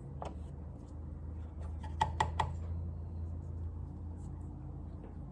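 A few light clicks and taps of sewing machine parts being handled, three quick ones close together about two seconds in, over a low steady hum.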